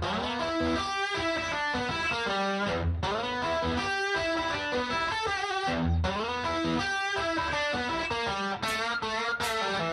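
Background music led by a guitar, a riff that repeats about every three seconds, with sharp hits coming in near the end.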